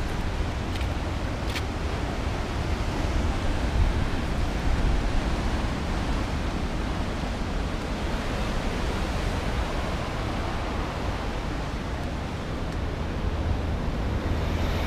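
Ocean surf breaking on rocks, a steady rushing noise, mixed with wind noise on the microphone.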